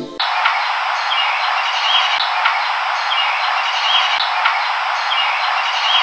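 Heavily amplified, filtered outdoor audio: a steady hiss with short faint chirps recurring about once a second.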